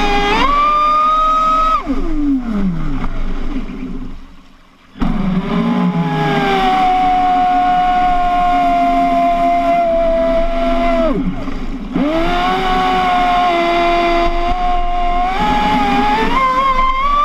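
Traxxas Spartan RC boat's electric motor whining under throttle on a 6S LiPo. The pitch steps up, then falls away as the throttle is cut about two seconds in, and the motor is nearly silent for a moment. It comes back to a steady whine, dips briefly near eleven seconds, and rises again in steps near the end.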